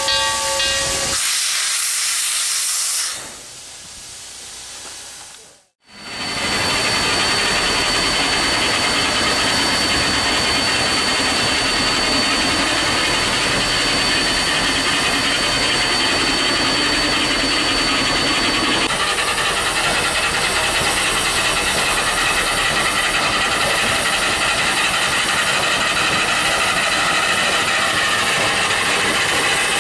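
Steam locomotive CN 7470, a 1921 O-18a, sounding the last second of a steam whistle blast, then venting steam. After a brief dip the hiss comes back loud and steady, with a thin high tone in it for about its first half.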